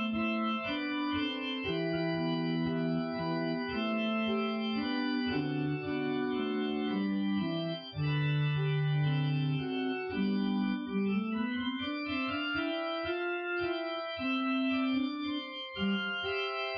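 Organ music: slow, sustained chords moving from one to the next every second or so over a low bass line.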